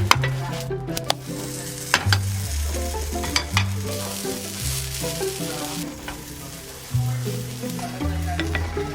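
Background music with a low bass line stepping from note to note every second or so, over a constant crackle of clicks and hiss.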